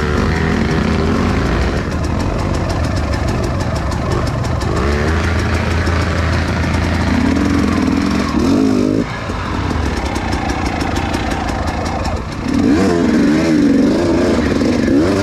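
Off-road trail motorcycle engine running under throttle, its revs rising and falling repeatedly, with a run of quick throttle blips in the last few seconds.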